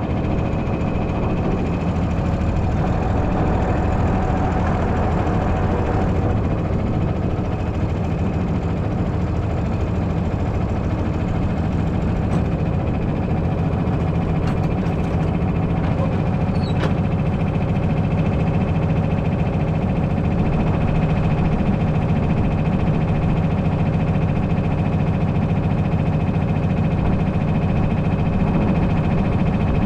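An engine running steadily, a loud even drone with a low hum. A few faint high squeaks or clicks come about halfway through.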